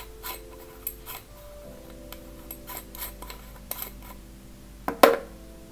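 Background music with soft held notes over small clicks and rustles of objects being handled. A sharper double click comes about five seconds in.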